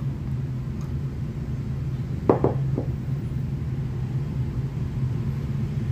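Steady low rumble, with a short voice-like sound about two seconds in.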